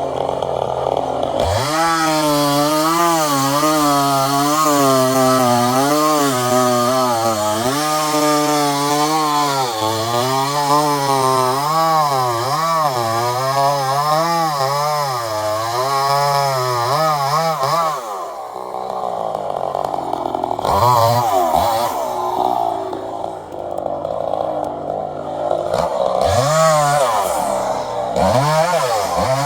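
Two-stroke chainsaw cutting wood, its engine note wavering up and down under load for about sixteen seconds. It then comes off the cut and is revved in several short blips, the pitch rising and falling each time.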